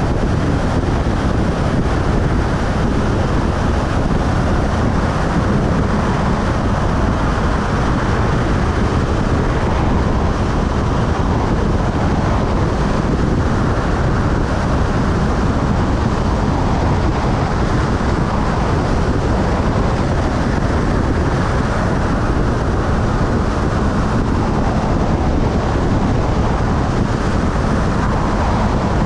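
Steady wind rush over the microphone of a motorcycle cruising at highway speed, with the engine's even drone underneath.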